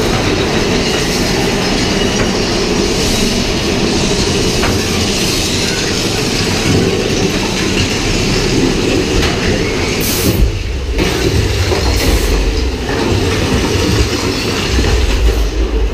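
A ride train clattering and rumbling along its track, wheels and cars rattling steadily. The low rumble grows heavier from about ten seconds in, with two brief hissing bursts around then.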